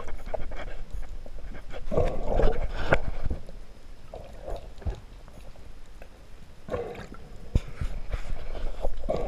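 Seawater splashing and gurgling around a camera at the surface, coming in irregular surges, with scattered sharp knocks.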